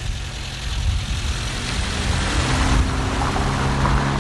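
A saloon car driving past at low speed, its engine running at a steady low pitch and growing louder about two seconds in, over a low rumble of wind on the microphone.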